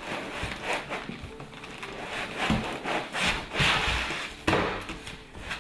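Cardboard box and packing materials being pulled open and handled: a run of irregular scrapes and rustles, loudest in the second half.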